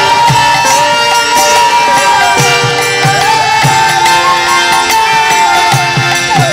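Kirtan music: a sustained melody line that bends and glides in pitch, over repeated hand-drum strokes and jingling percussion.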